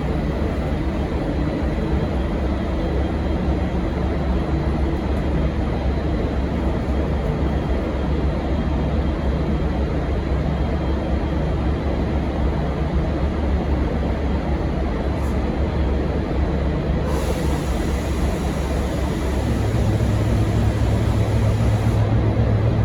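V/Line N class diesel locomotive engine running with a steady low rumble. A hiss comes in about 17 seconds in and stops about five seconds later, and the engine grows louder about 20 seconds in.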